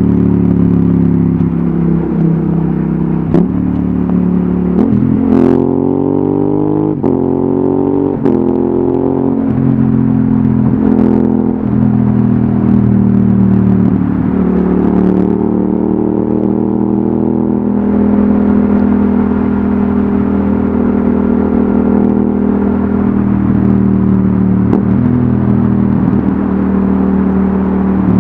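Yamaha XSR700's parallel-twin engine through an aftermarket Akrapovic exhaust under way. It rises in pitch under acceleration, with brief drops at gear changes about a fifth to a third of the way in, then runs at a fairly steady pace.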